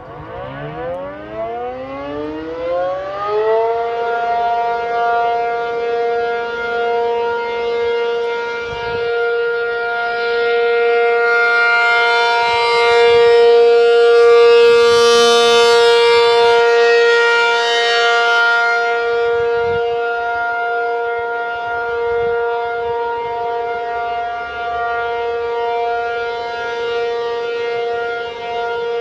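ACA P-50 outdoor warning siren winding up from a low pitch over about four seconds, then holding one steady tone that swells and fades slowly as the horn rotates. It is sounding for its monthly test.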